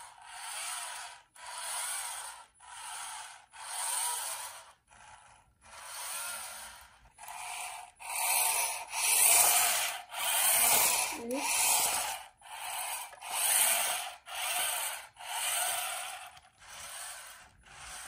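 Small electric motor of a Thames & Kosmos Hoverbots toy robot running a sample program, whirring in evenly spaced bursts about once a second, each swelling and fading, in a steady back-and-forth rhythm that is loudest in the middle.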